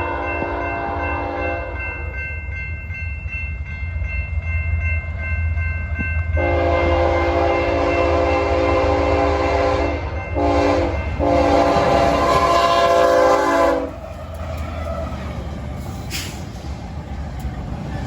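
BNSF freight locomotive horn sounding the grade-crossing signal (long, long, short, long) over the steady low rumble of the diesel locomotives. The last long blast cuts off about two-thirds of the way through, leaving the rumble of the approaching train.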